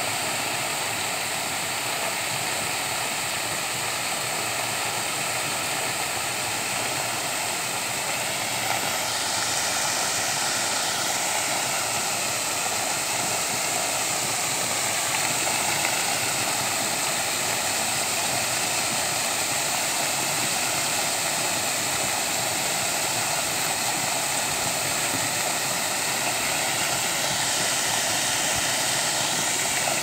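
Water fountain with a dandelion sphere jet and ring of arching jets, spraying and splashing steadily into its basin: an even, hissing rush of falling water.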